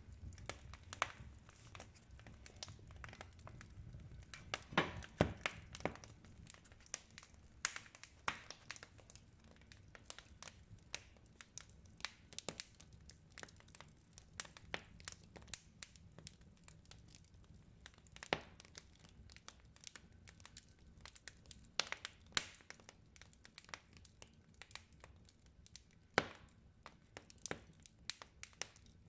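Wood fire burning in a fireplace: logs crackling with irregular sharp pops, a few louder snaps standing out here and there.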